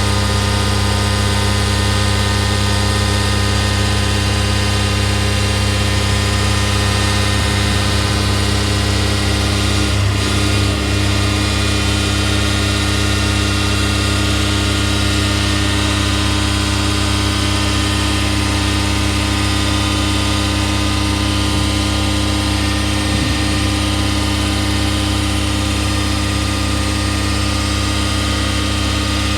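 Jet airliner's engines running steadily on the ground, a constant loud noise with several unchanging tones from low to high pitch.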